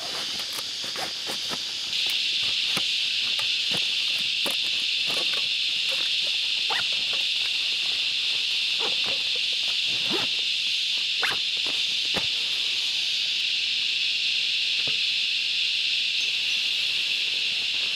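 Cicadas calling in a steady, high-pitched chorus that grows louder about two seconds in, with scattered short clicks and a few brief calls over it.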